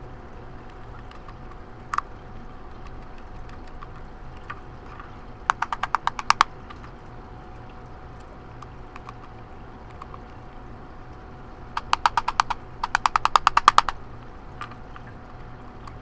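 Small screwdriver turning screws in a Syma X5 quadcopter's plastic body: three short runs of quick, evenly spaced clicks, about ten a second, one about a third of the way in and two close together later. A faint steady hum lies underneath.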